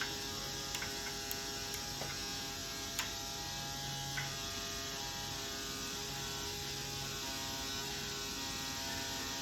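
Steady electric buzz with a dense hum, like a small motor running, broken by a few faint clicks; to the owner it sounds like metalwork in a shop.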